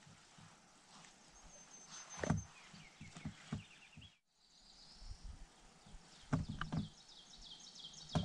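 Small songbirds chirping in quick high series, over faint outdoor background, with a few low thumps and rustles from close by.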